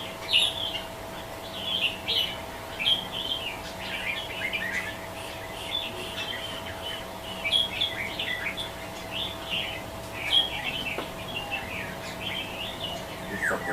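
Small birds chirping and twittering in quick, irregular short notes, with a faint steady hum underneath.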